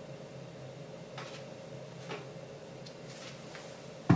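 Quiet room with a faint steady hum, then near the end a single loud thud as a bare foot lands on the carpeted floor, the start of hopping on one leg.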